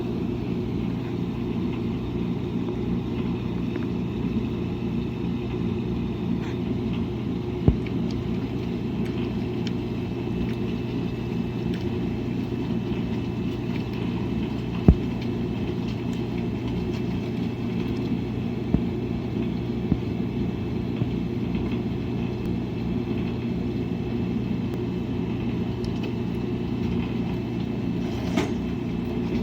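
Washing machine running with a steady low hum, and a few sharp clicks scattered through it.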